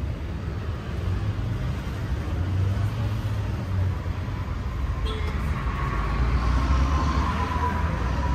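Street traffic: a steady low rumble of passing vehicles that grows louder in the second half, with a thin whine coming in about five seconds in.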